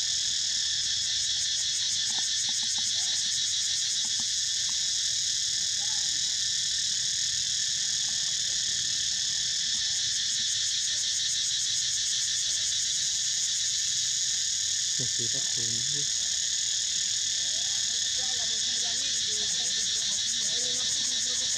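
Dense chorus of insects buzzing steadily at a high pitch, unbroken throughout. A few faint, short, lower calls sound underneath about two-thirds of the way in and again near the end.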